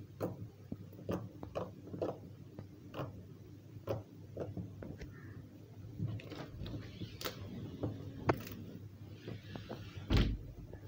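Hands squeezing and pressing blue clear slime mixed with clay, giving a run of irregular small clicks and pops; a louder thump near the end.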